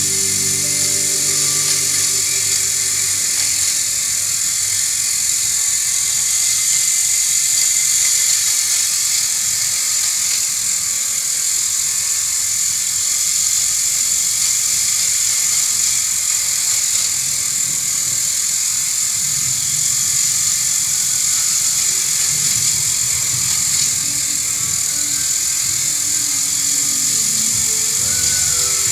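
Battery-operated Technofix Big Dipper tin toy roller coaster running: its small electric motor gives a steady, high-pitched whir like a drill, with the tin car running along the metal track.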